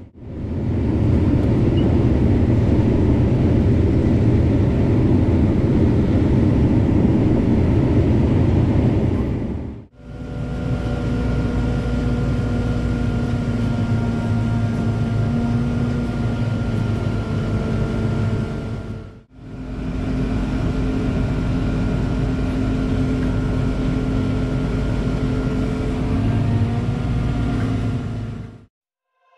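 Diesel engines of a Case IH Axial-Flow 2388 combine and a tractor running steadily at work, with the combine's unloading auger pouring shelled corn into a grain cart alongside. The sound fades out and back in about ten and nineteen seconds in, and a steady whine runs through the later part.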